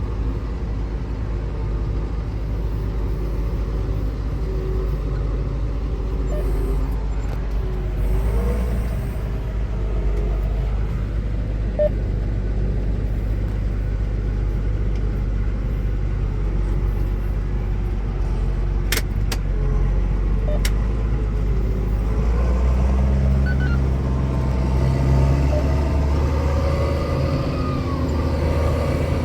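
Tractor engine running steadily under load while hauling a trailer of harvested maize. The engine note grows louder and heavier about two-thirds of the way through, and a few sharp clicks come shortly before.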